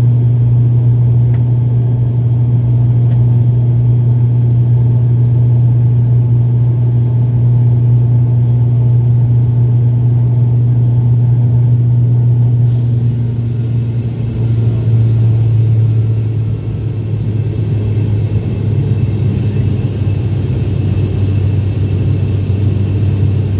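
ATR turboprop airliner's engines and propellers droning steadily, with a strong low propeller hum. About 14 seconds in, the hum drops slightly in pitch and loudness, then carries on.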